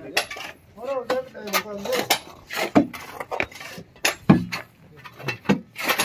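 Sharp metallic clinks and knocks of an iron digging bar and sledgehammer against rock, with broken stones knocking together as they are shifted, in an irregular series of strikes.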